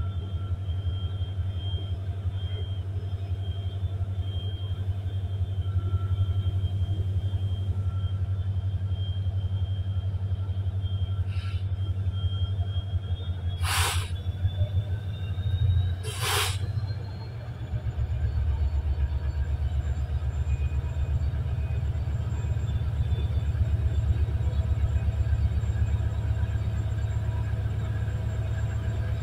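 Diesel-electric locomotive engine running with a steady, pulsing low rumble as it approaches slowly along the track, with faint whines, one rising in pitch. About halfway through come two short, sharp hisses.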